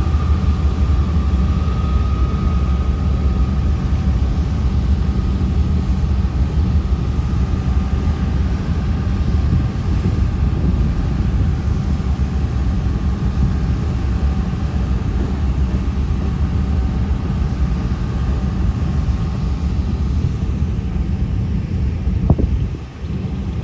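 Freight train of empty covered hoppers rolling past close by: a loud, steady, heavy rumble of wheels on rail, with a faint tone fading over the first few seconds and a brief sharp click near the end.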